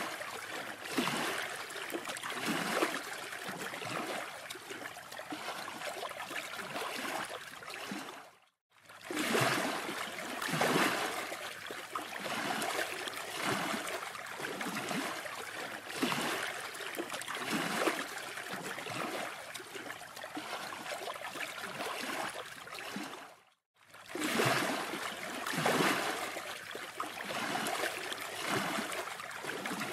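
Steady rushing noise of sea surf on an open beach, with soft regular pulses about once a second. The sound cuts out completely for a moment twice.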